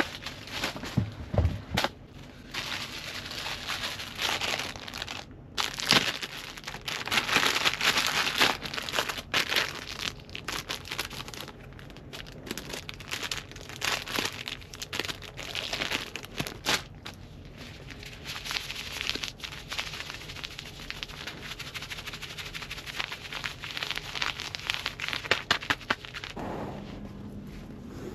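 Plastic wrappers of disposable heat packs being torn open and crinkled in the hands, a run of sharp crackles and rustles that thins out near the end.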